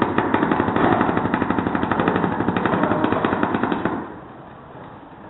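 Paintball marker firing a rapid, even string of shots, many a second, for about four seconds before stopping.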